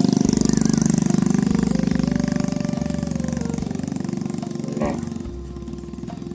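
A small engine running with a fast, even beat, fading after about five seconds.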